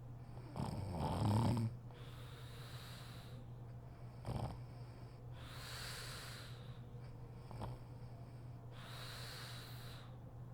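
A woman snoring in her sleep: one loud, low snore about a second in, then three long, airy breaths, with two brief catches in between.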